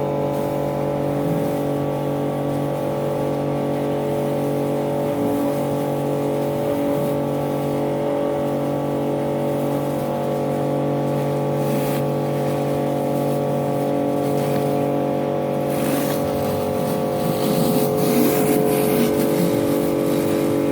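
Kärcher K4 electric pressure washer running: a steady motor-and-pump drone, with more spray hiss coming in near the end.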